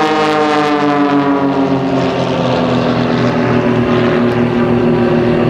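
Propeller engines of two aerobatic biplanes flying in formation, a steady buzz whose pitch falls over the first two seconds and then holds.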